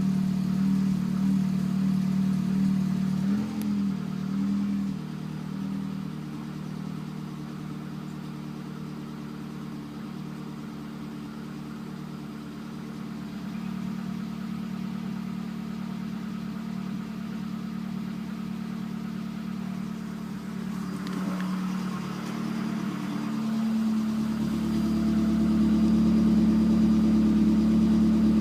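Car engine running cold at idle, filmed for the knock it makes when cold. The engine speed drops and steadies about five seconds in, then rises again and runs louder near the end.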